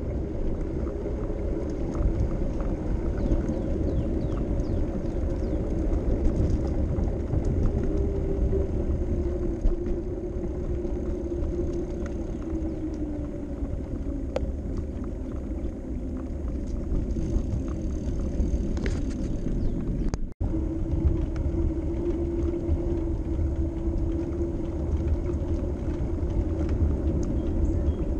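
Wind rushing over the microphone and tyre rumble from a bicycle riding along a paved path, with a faint hum that slides lower in pitch and then holds steady. The sound cuts out for a split second about twenty seconds in.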